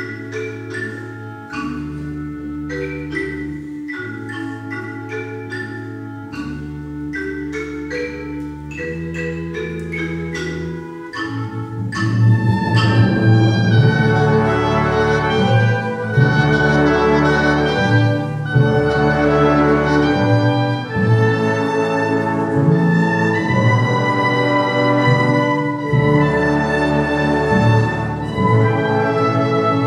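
Symphony orchestra playing: a quick stream of short, detached notes over held low notes, then about twelve seconds in the full orchestra comes in, louder and fuller.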